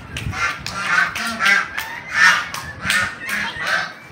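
Geese honking repeatedly in a run of short calls, two or three a second.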